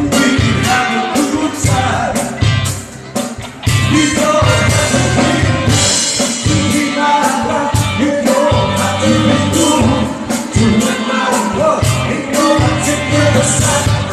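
Live band playing an upbeat song, with a steady drum beat and bass under melodic instrument lines and some singing.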